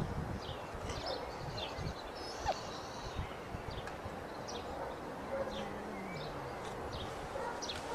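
Cat yowling during a standoff before a fight: a faint, low, drawn-out yowl that falls in pitch about five to six seconds in. Small birds chirp repeatedly over a steady outdoor background hiss.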